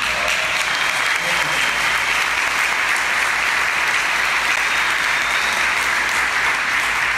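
Audience applauding: many hands clapping together in a steady, even wash of applause.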